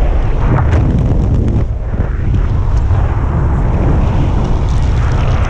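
Wind buffeting an action camera's microphone while speed flying: a loud, steady low rumble of rushing air, with brief flutters over it.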